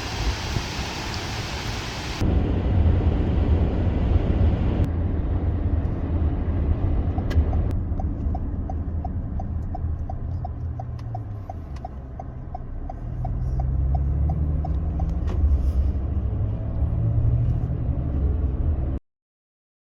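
Steady low rumble of a car on the road. A run of quick, even ticks sounds for a few seconds in the middle, and the sound changes abruptly twice before cutting off suddenly near the end.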